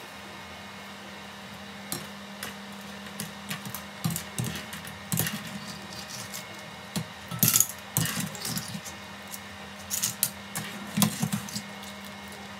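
Wire-mesh skimmer knocking and scraping against a nonstick frying pan while lifting blanched geoducks out of hot water, in scattered clicks and splashes that are loudest about halfway through and near the end. Under them runs the steady hum of an induction cooker.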